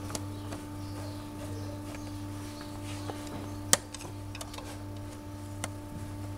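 Long screwdriver working a screw on a sensor at a diesel injection pump: a few faint, sharp metal clicks, the loudest a little past halfway, over a steady low hum.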